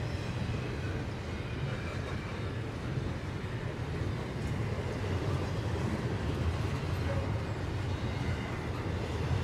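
CSX freight train's double-stack container cars rolling past, a steady low rumble of wheels on rail.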